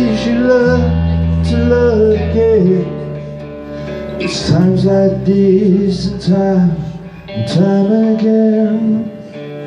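Rock band playing live, with electric guitars, bass guitar and drums, loud. The music drops off sharply about nine seconds in as the song ends.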